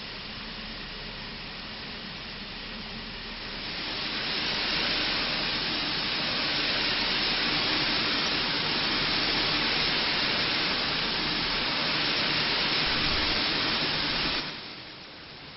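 Steam hissing from a GWR 0-6-0 pannier tank locomotive, a steady rushing hiss that grows much louder about four seconds in and cuts off sharply near the end.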